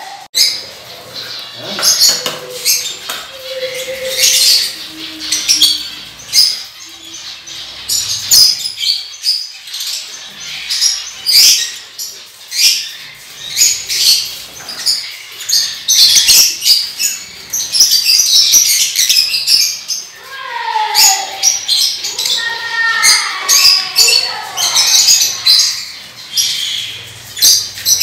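Many small caged birds chirping at once, a dense, continuous stream of short high chirps overlapping one another, with a run of falling calls about three-quarters of the way through.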